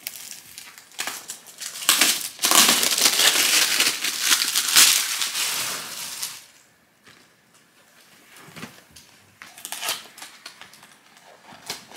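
Crinkly packaging being crumpled and pulled open by hand: loud crackling from about two seconds in until about six seconds, then only faint rustles and a few light clicks.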